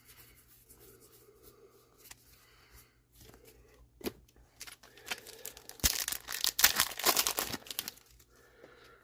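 Foil booster pack wrapper being torn open and crinkled by hand, a dense crackly burst over about three seconds near the end, after a single sharp tap about four seconds in.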